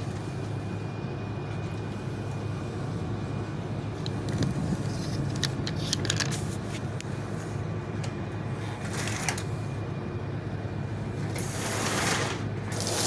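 Lionel postwar New York Central F3 diesel locomotive running on its track with a steady motor-and-gear hum, both motors now pulling after a brush that wasn't making contact was fixed. A few clicks come about halfway through, and the running gets louder near the end.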